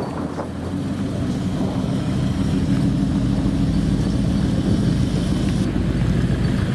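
A tuned Ford Mustang's V8 engine idling steadily, with a low, even rumble.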